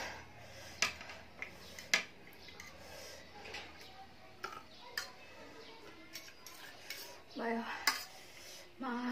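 Metal cutlery clinking and scraping against a tray and plate while ramen noodles are eaten, in scattered sharp clicks. Two short voice sounds near the end.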